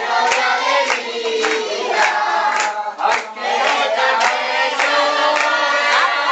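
A crowd of people singing and chanting together, many voices at once, with claps scattered through it.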